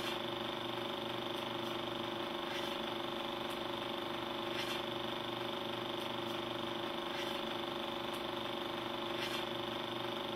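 A steady mechanical whirring hum with a few faint clicks scattered through it.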